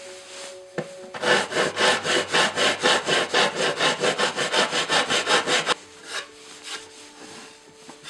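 Flat metal file rasping along the edge of an ash-wood shoe horn in quick back-and-forth strokes, about four a second. The strokes start about a second in and stop abruptly just before the six-second mark.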